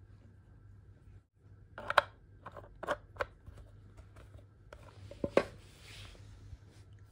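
Hard plastic clicks and knocks from a spray mop's plastic water bottle, spray cap and mop-head joint being handled: a cluster of sharp clicks about two to three seconds in, two more a little after five seconds, then a brief rustling hiss.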